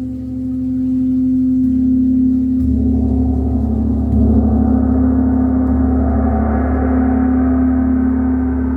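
Gong played with soft strokes: a steady, sustained low hum that swells with new strokes about one and a half, two and a half and four seconds in, its shimmer spreading higher and building.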